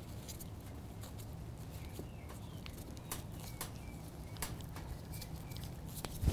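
Light clicks and taps of a stainless rotisserie spit and its forks being handled as the trussed leg of lamb is pushed along it to center it, over a steady low hum, with a few faint bird chirps and a louder knock near the end.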